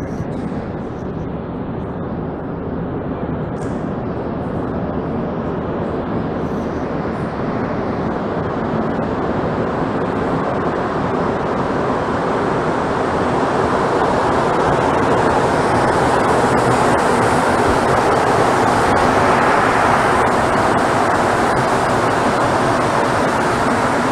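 Rubber-tyred Montreal Metro train approaching through the tunnel and pulling into the station: a steady noise that grows gradually louder and brighter until the train is passing alongside near the end.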